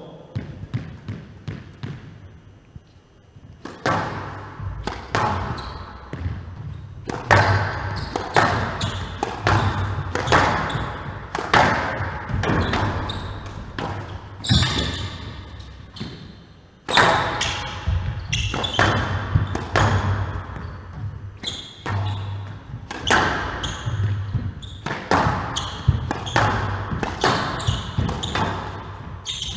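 Squash rally: the ball is struck by the rackets and smacks off the walls of a glass-backed court in a hall. Sharp hits come about once a second, starting about four seconds in and carrying on steadily.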